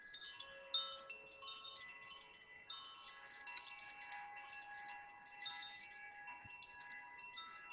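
Chimes ringing: many high metallic notes struck in quick, overlapping succession, each ringing on, with a few lower notes sustained beneath them. They begin suddenly at the start.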